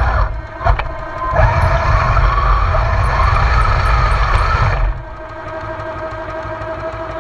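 Radio-controlled Panther tank model driving, heard from on board: its motors and tracks run loud with a wavering pitch. About five seconds in they drop to a quieter, steady running.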